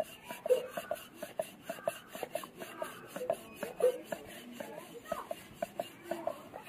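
Wooden rolling pin rolling out boiled rice-flour dough on a wooden board, making a run of light clicks and knocks. Two short wavering voice-like cries sound in the background, about half a second in and just before four seconds.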